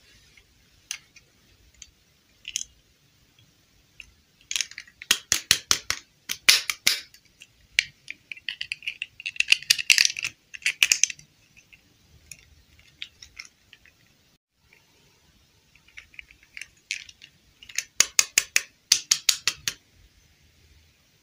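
Small plastic dolls and their stiff plastic dresses being handled by hand, giving quick runs of sharp clicking and crackling in three spells, with quieter handling between.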